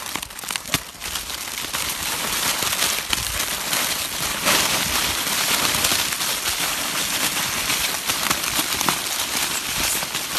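Dense crinkling and crackling of many plastic snack wrappers as a troop of monkeys grabs and tears into a heap of packaged snacks, building up over the first couple of seconds.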